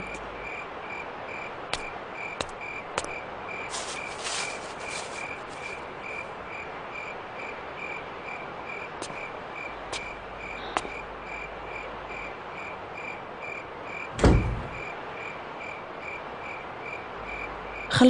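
A cricket chirps steadily, a high pulsed chirp about twice a second, over a quiet background. Scattered light clicks and knocks come in between, and one heavy thud about fourteen seconds in is the loudest sound.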